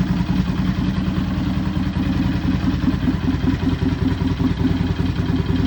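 Harley-Davidson Dyna Low Rider's Twin Cam 103 V-twin idling steadily on a cold engine, with a rattle running through the firing pulses.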